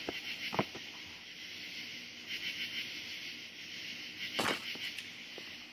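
Night insects chirping steadily, with a short sharp noise about half a second in and a louder sharp noise about four and a half seconds in.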